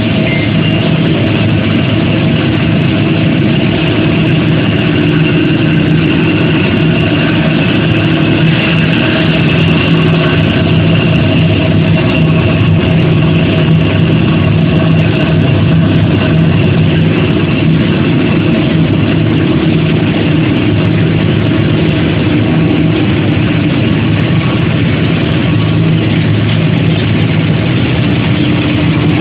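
Charcoal briquette production line machinery running continuously, a loud steady mechanical drone with a low electric-motor hum under a constant rumble.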